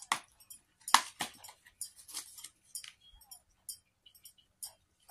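Crinkling and clicking of a McDonald's toy's clear plastic wrapper and takeout packaging being handled, with a few sharp clicks about a second in.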